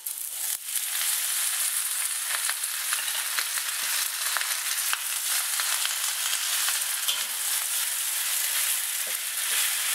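Flat rice noodles sizzling as they hit smoking-hot oil in a wok, the sizzle jumping up about half a second in and running on as they fry. A metal spatula scrapes and clicks against the wok as the noodles are stir-fried.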